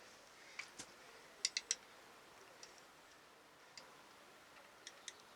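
Scattered faint metallic clicks and taps of hand tools working on a motorcycle's ignition timing back plate as it is nudged round to advance the timing, including a quick run of three clicks about a second and a half in.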